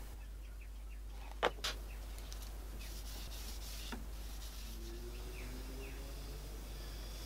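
Cloth rubbing homemade beeswax and mineral oil block oil into an end-grain wooden board, over a low steady hum. Two sharp clicks come close together about a second and a half in, the loudest sounds, with a fainter click near four seconds.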